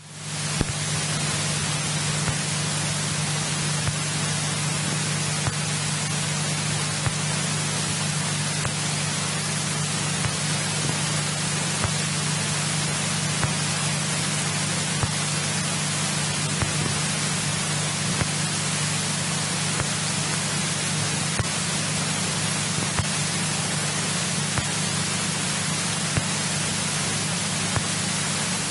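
Steady hiss of a cockpit intercom feed, with a steady low hum under it from the Cessna 172E's engine running at taxi power.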